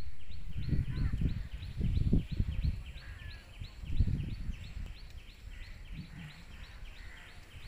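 Wind buffeting the microphone in uneven low rumbles, loudest in a few gusts. Behind it, a small animal repeats a short high chirp steadily, about four times a second.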